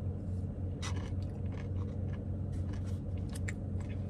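Close-mouthed chewing of soft-serve ice cream with crunchy praline toasted almonds: irregular small crunches over a steady low hum inside the car.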